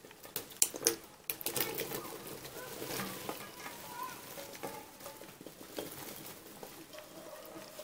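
Chopped bell pepper pieces tumbling from a bowl into a basin of tomato juice: a quick run of clicks and soft plops at first, then a steady wet rustle as the pieces pile up.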